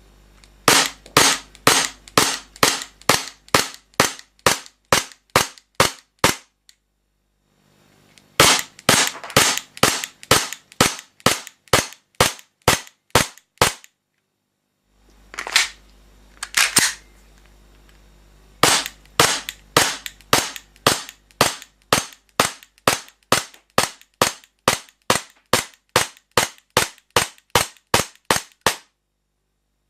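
Cybergun FN FNS-9 airsoft pistol firing shot after shot at about two sharp cracks a second. There are strings of about a dozen shots with short pauses between them, a lone pair of shots, and a long final string of over twenty.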